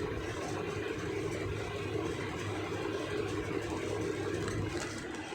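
Steady hum of an electric fan running in the room.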